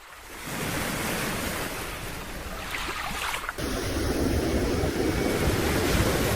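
Ocean surf washing in on a sandy beach, with wind rumbling on the microphone that grows louder about three and a half seconds in.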